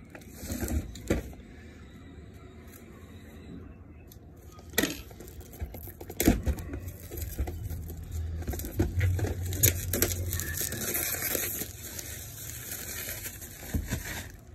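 Product packaging being torn and crinkled open by hand, with a couple of sharp clicks about five and six seconds in and a longer stretch of crinkling after.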